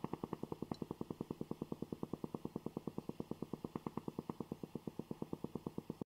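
Coffee maker running with a fast, even pulsing, about eight pulses a second.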